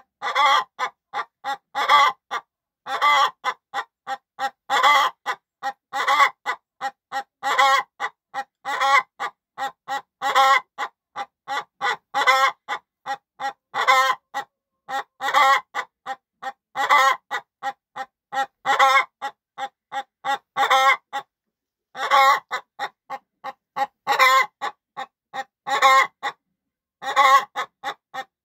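Laying hen on a straw nest clucking in steady runs of short clucks, with a louder call about every second and a half and one brief pause about three-quarters through: the pre-laying call a hen makes just before she lays an egg.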